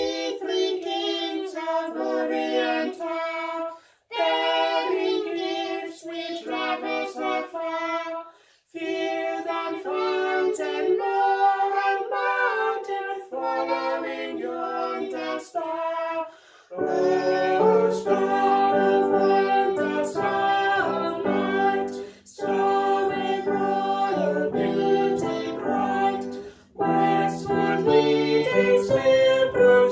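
A woman and a young girl singing a carol together in phrases with short pauses; a little past halfway the sound grows fuller and deeper.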